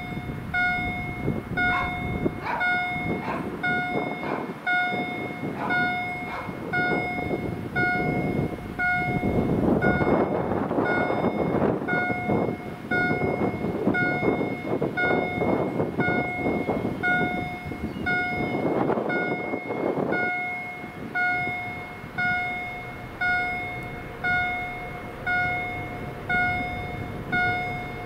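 Level-crossing warning bell (electronic GZT 30 gong) striking steadily about once a second while the crossing is closed for a train. A passing train adds a loud rumble from about a third of the way in until about three-quarters through, with some clicking just before it.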